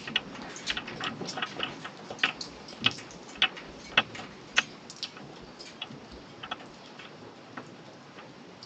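Loose hard objects rattling and clicking in irregular sharp taps, dense at first and thinning out after about five seconds.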